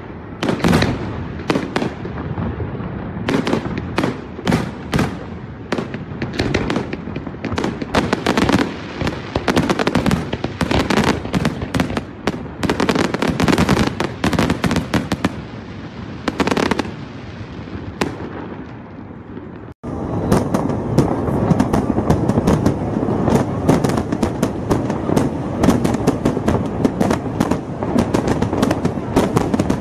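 Aerial fireworks shells bursting in quick succession, a steady string of sharp bangs. About twenty seconds in the sound cuts to a denser, nearly continuous barrage of bangs and crackle.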